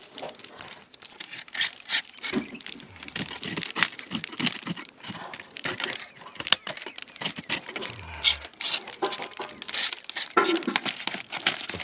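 Irregular clicks, knocks and crinkling rustles of hand work on wooden beehive frames, with no steady rhythm.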